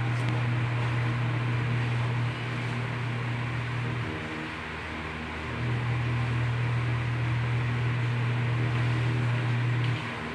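A steady low machine hum over a background hiss. It drops away about four seconds in and returns a second or so later.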